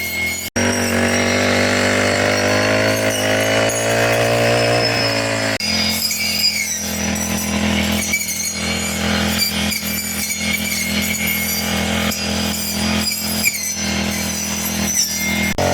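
Four-stroke brush cutter engine running steadily while cutting grass, its pitch climbing a little in the first few seconds. The sound breaks off sharply and resumes twice, about half a second and five and a half seconds in.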